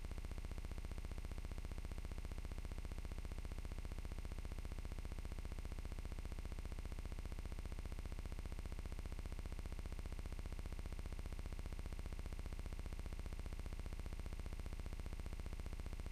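Steady electronic buzz with a low hum underneath, unchanging throughout. It is the noise floor of a ShotKam gun-mounted camera's audio track, with no field sound on it.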